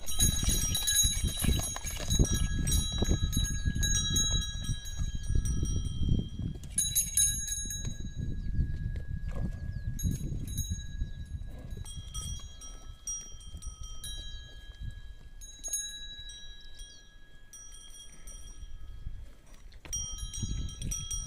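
Cattle bells ringing at several different pitches as cows and bullocks walk and drink on wet rock, over a low rumble. The rumble is heaviest in the first half and then fades.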